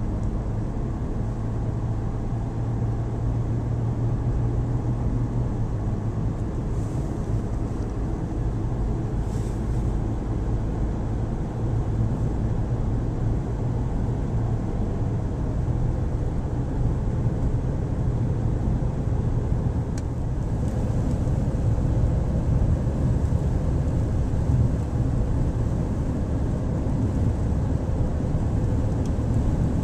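A car driving, heard as a steady low drone of engine and road noise that grows a little louder about two-thirds of the way through.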